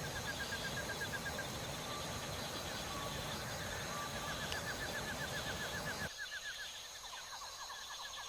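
Birds singing at dawn: fast trills of short repeated notes and a few brief single whistles, over a steady background hiss. The low part of the background drops out suddenly about six seconds in while the trills go on.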